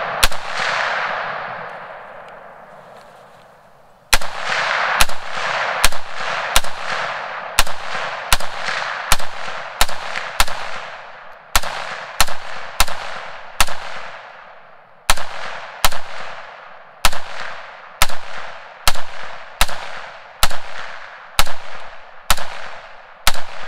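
PSA AR-10 .308 semi-automatic rifle firing a string of shots through a long muzzle brake ported all the way around: one shot, a pause of about four seconds, then steady fire at roughly one to two shots a second, each sharp report trailing off in a ringing echo. Very, very loud.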